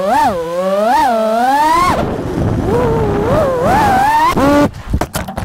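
FPV quadcopter motors whining, the pitch rising and falling with the throttle. Near the end the whine cuts in and out in quick chops.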